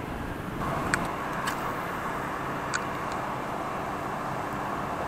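Steady outdoor background noise, with a few faint short clicks scattered through it.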